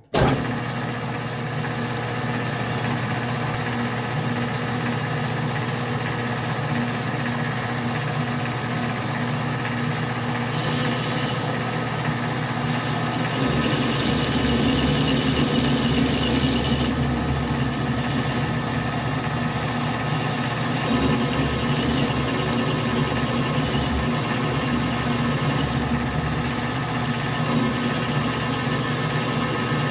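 Metal lathe running steadily with its motor and gearing humming while the parting tool cuts the workpiece to part it off. A higher whine joins in for several seconds about a third of the way through.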